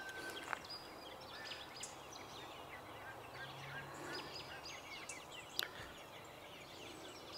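Faint birdsong: several small birds chirping and trilling over a light outdoor background, with one sharp click about five and a half seconds in.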